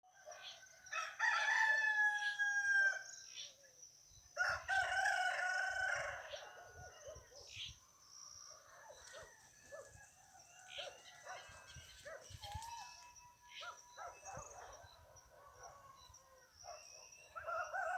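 Roosters crowing: two loud, drawn-out crows in the first six seconds, fainter calls and clucking in between, and another crow starting near the end.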